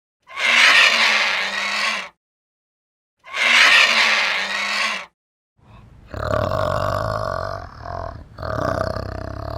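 Animal calls: two harsh, noisy calls of about two seconds each with a gap of silence between them, then from about six seconds in a different, steadier call with a held tone, broken once by a short gap.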